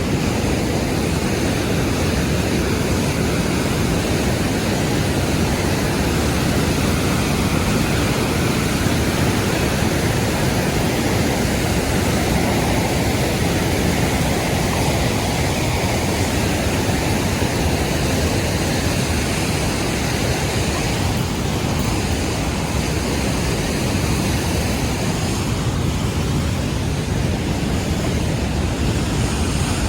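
Large waterfall rushing with a loud, steady roar of falling water.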